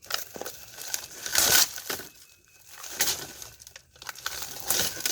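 Samsung plasma TV being broken apart: four crunching, crackling bursts of breaking glass and plastic, the loudest about a second and a half in.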